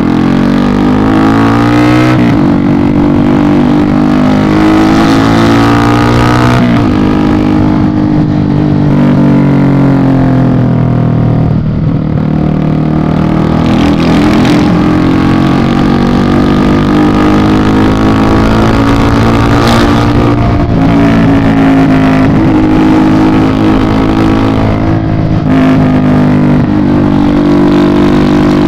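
Yamaha Fazer 250 single-cylinder engine and loud exhaust, heard from the rider's seat, accelerating through the gears. The pitch climbs and drops at each shift, about two seconds in and again around seven seconds, then rises and falls with the throttle while cruising.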